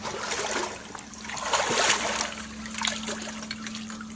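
Water sloshing and splashing around the legs of hunters wading through knee-deep flooded timber, coming in uneven swells, loudest about halfway.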